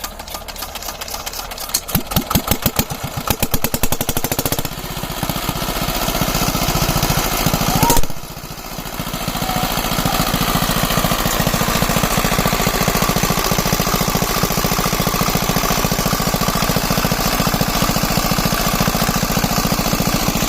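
Single-cylinder diesel engine of a shallow tube-well irrigation pump starting up. Rapid, even firing beats pick up about two seconds in, there is a sharp knock and a brief dip near eight seconds, then the engine runs steadily.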